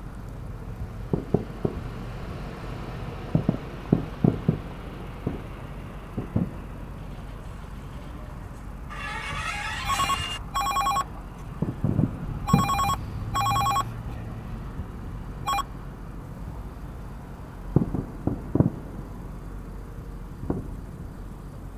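Distant fireworks shells bursting as a series of dull booms, in clusters about a second in, around four seconds, twelve seconds and eighteen seconds. From about nine to sixteen seconds a phone ringtone plays: a short rising run of notes, then several repeated bursts of a steady electronic ring.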